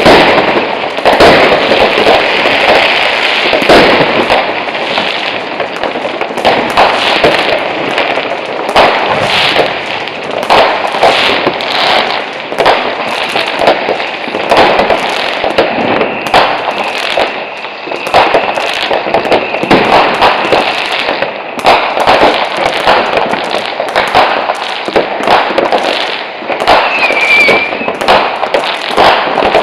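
New Year's Eve fireworks: rocket bursts and firecracker bangs going off without a break, many overlapping, with crackling between them. A thin steady whistle runs for several seconds past the middle, and a short wavering whistle comes near the end.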